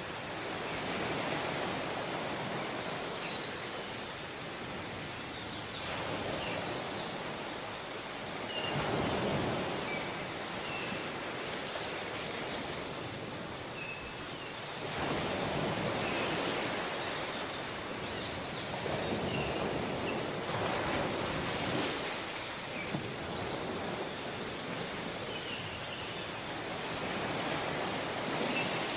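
Surf on a tropical beach, the wash of the waves swelling and falling back every few seconds, under a steady high hum and scattered short high chirps.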